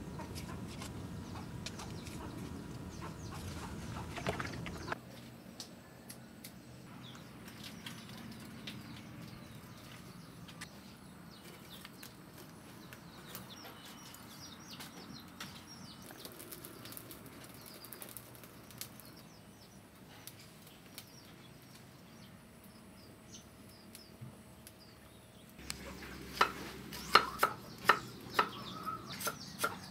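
Cleaver chopping garlic on a round wooden chopping block: a run of sharp knocks, two or three a second, starting near the end and the loudest thing heard. Before it, quiet outdoor background with faint bird chirps.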